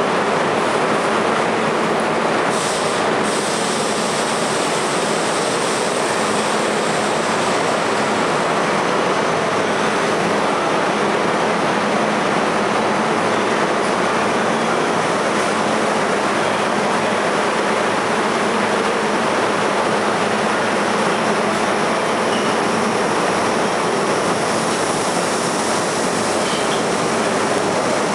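New York City subway train of R32 cars running alongside the platform: a steady, loud rumble of steel wheels on the rails.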